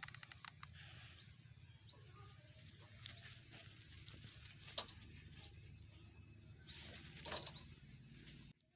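Maize cobs set down on a wire grill rack, a few light clicks and knocks, the loudest about five seconds in and a cluster near the end. Short high chirps of a small bird come and go behind them, over a low hum that cuts off just before the end.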